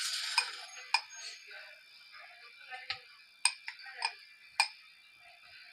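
Sliced onions frying in hot ghee in a pot: a louder burst of sizzling right at the start settles to a faint steady hiss, with about half a dozen sharp pops or clicks scattered through.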